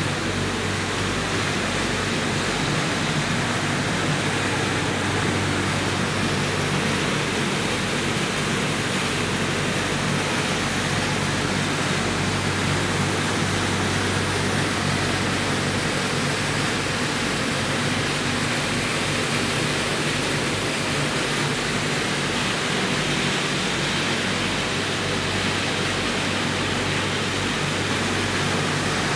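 Steady, even noise of processing machinery running in a PCB recycling plant, with a low hum under a broad hiss and no separate knocks or changes.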